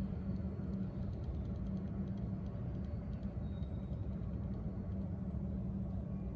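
Steady low rumble of a large hall's room noise. From about half a second to three seconds in, a faint, rapid, even ticking: the propeller of a tiny rubber-powered no-cal model plane rubbing a little as it turns.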